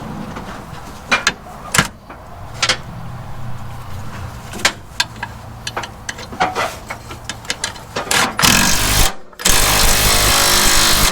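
Steel wrenches and hand tools clinking and knocking as they are sorted through, in scattered sharp clicks. About eight seconds in, a loud steady rushing noise starts, breaks off briefly, then runs on for about two more seconds.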